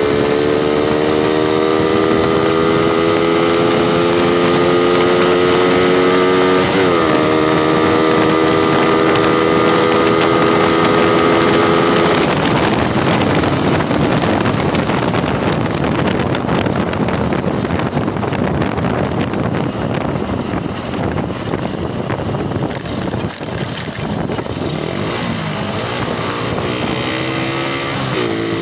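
Suzuki Raider motorcycle engine accelerating, its pitch climbing steadily, dropping at a gear change about seven seconds in, then climbing again. From about twelve seconds in, wind rushing over the microphone at speed drowns out the engine, which is heard rising again faintly near the end.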